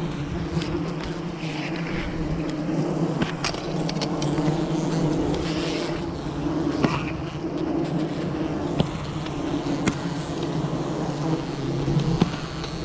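A swarm of wild cliff-nesting honeybees buzzing in a steady low hum around their comb as it is being harvested, with a few scattered sharp clicks.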